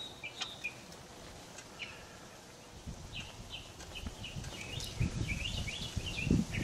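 Small birds chirping in quick short calls, a few near the start and a busy run in the second half, over low rumbling noise.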